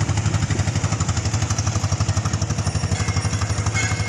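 A fishing trawler's diesel engine running steadily, with a low, rapid, even beat.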